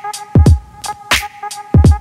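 Background music with a beat: deep kick drums that slide down in pitch, twice, sharp snare hits between them, and a steady held synth note.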